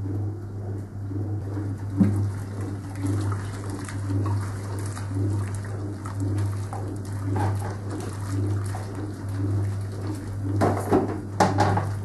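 Servis Superheat wringer washer agitating a hot wash: a steady motor hum under the agitator swishing soapy water back and forth in an even, repeating rhythm. A knock about two seconds in, and a cluster of louder knocks and clatter near the end.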